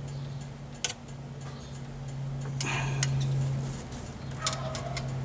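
A few light clicks and a brief rubbing as a hand works cornstarch in between an alternator's drive belt and its pulley, over a steady low hum.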